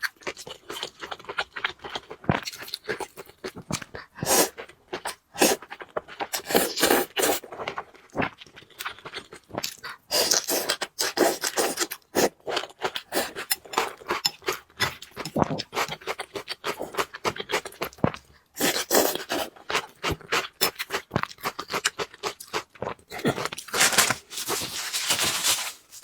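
Eating sounds: noodles being chewed and slurped, with irregular wet clicks and scraping throughout and a few longer noisy stretches.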